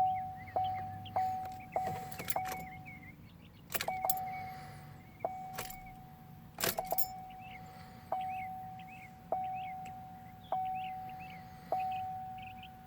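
2014 GMC Sierra warning chime dinging over and over, each ding a single tone that fades out. It goes about twice a second at first, then slows to about once a second from about four seconds in. A few sharp clicks fall between the dings, with faint bird chirps behind.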